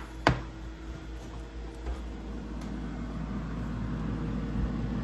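Metal sheet pan being handled: a sharp knock about a quarter second in, then a steady low hum with handling noise slowly building as the tray is carried.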